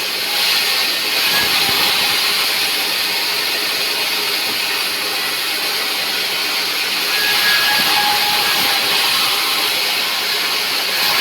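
Sawmill saw machinery running, a loud steady hiss-like noise without pauses.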